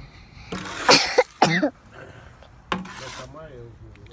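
A person coughing in a short, loud burst about a second in.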